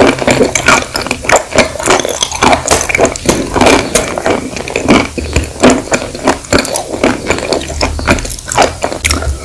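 Close-miked chewing of crumbly chalk with a creamy paste: a dense run of crisp crunches and crackles, several a second.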